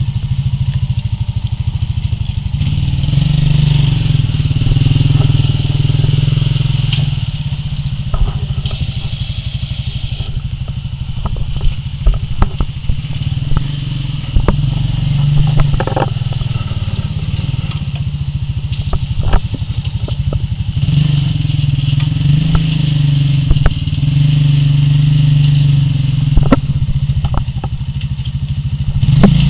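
Quad bike (ATV) engine running at low speed, its note rising and falling with the throttle. Scattered clicks and knocks come through as its front plough blade pushes dirt and stones.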